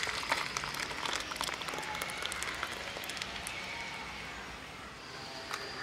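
Thick moong dal payasam pouring from a steel pot into a steel bowl, splashing and splattering with many small clicks in the first few seconds, then settling to a softer flow.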